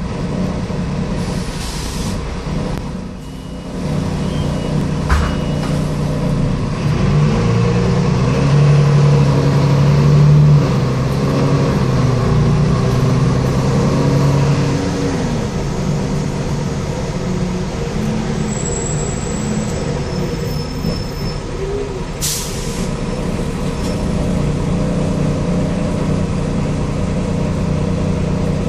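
Interior of an Ikarus 127V city bus under way: the diesel engine and drivetrain drone steadily, and the engine note rises and steps down a few times between about 7 and 15 seconds in as the bus accelerates and shifts. A short hiss of air, typical of the air brakes, comes about three-quarters of the way through.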